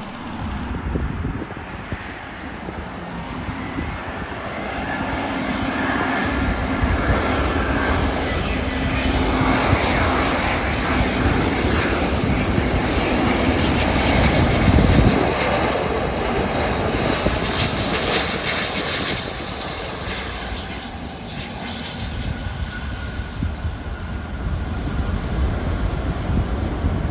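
Airbus A350-900 jetliner landing, its Rolls-Royce Trent XWB turbofans making a broad roar. The roar grows steadily to its loudest about halfway through, then eases as the deep rumble falls away.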